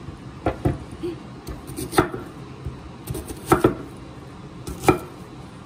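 Large kitchen knife chopping a peeled onion on a wooden cutting board: about six sharp knocks of the blade on the board, spaced irregularly, a second or so apart.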